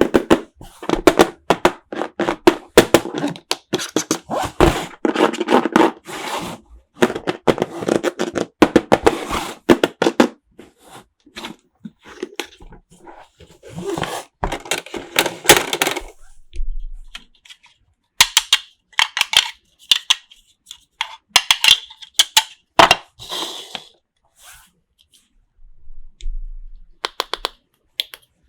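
Small plastic toy pieces and packaging being handled: a long run of rapid clicks, clinks and clatters, thinning to scattered clicks and short rustles in the second half.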